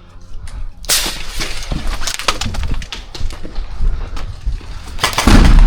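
Airsoft exchange of fire: a dense run of sharp clicks and cracks from airsoft guns shooting and BBs striking, starting about a second in, with a loud heavy knock near the end.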